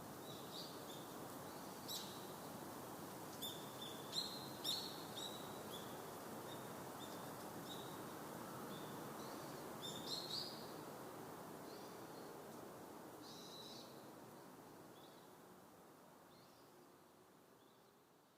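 Small birds chirping and calling in short, high notes over a steady background rush. The sharpest chirps come about two, four and ten seconds in, and the sound fades out near the end.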